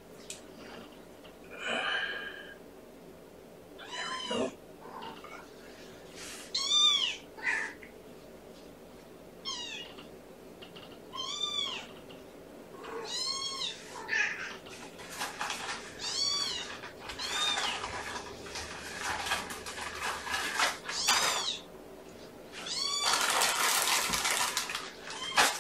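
A cat mewing over and over: high calls that rise and fall in pitch, about one every two seconds, with rustling noise between them that is loudest near the end.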